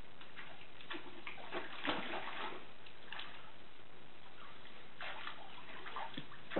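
Water sloshing and splashing in a plastic wading pool as a pig wades through it, in irregular splashes with the loudest about two seconds in.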